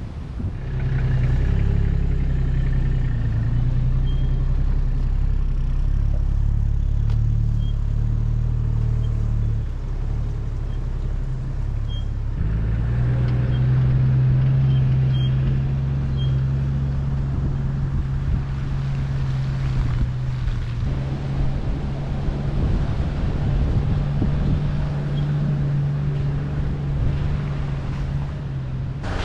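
Engine of a four-wheel-drive vehicle running steadily while driving, a low hum that changes pitch twice, like gear changes.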